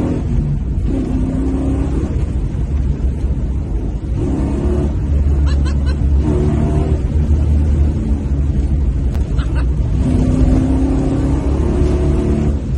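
Dodge Coronet's stock 6.1-litre Hemi V8 heard from inside the cabin, pulling hard under acceleration, its engine note climbing and dropping back several times with a strong low rumble throughout.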